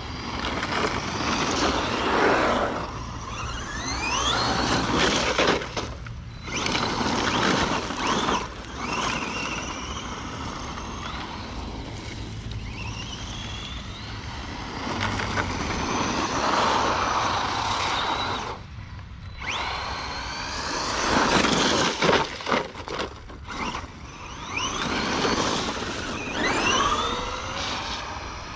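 Redcat Camo TT Pro RC trophy truck's electric motor whining in repeated throttle bursts, the pitch rising as it accelerates and dropping away when the throttle is released, over the noise of its tyres on wet gravel.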